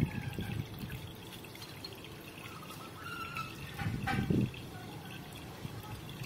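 Water pouring from the two PVC outlet pipes of a stacked plastic-box aquarium filter and splashing into the tank water, with a louder surge about four seconds in.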